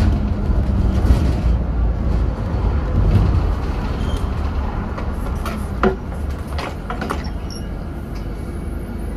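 A Scania OmniCity double-decker bus on a Scania N230UD chassis, heard from inside the upper deck: the engine runs with a steady low rumble under light rattles and knocks from the body, with one sharp knock about six seconds in. The sound eases off over the second half as the bus slows for a stop.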